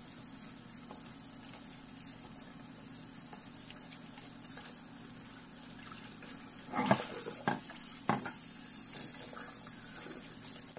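Kitchen tap running into a glass bowl in a sink while cut vegetable pieces are rubbed and rinsed by hand under the stream. A few louder knocks come about seven and eight seconds in as the bowl and pieces are handled.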